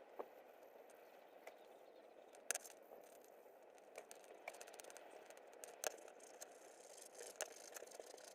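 Near silence: a faint steady hiss with a handful of small, sharp clicks and taps scattered through it.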